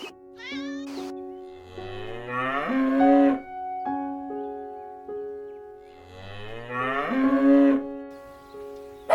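Cow mooing twice, two long calls that start low and rise in pitch, over background music.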